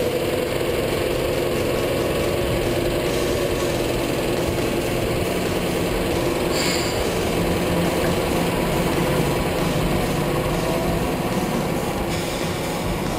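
Kenworth T300 dump truck's diesel engine running steadily, heard first from outside beside the wheels and then from inside the cab while driving. A brief high squeak sounds about halfway through.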